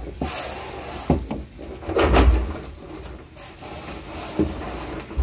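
Garden hose spray nozzle hissing as water sprays into a blue plastic drum, rinsing bleach out of it. The spray eases off a little past the halfway point. Several hollow knocks and low thumps come from the drum being handled, the loudest about two seconds in.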